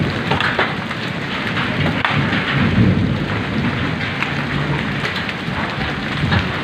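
Hailstones and heavy rain pelting the ground in a hailstorm: a dense, steady hiss of falling water with many sharp ticks of individual stones striking, over a low rumble.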